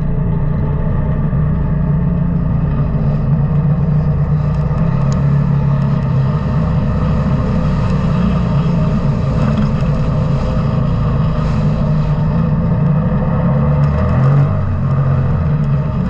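The engine of an off-road side-by-side vehicle running steadily under load while driving over sand. Its pitch rises and falls as the throttle changes.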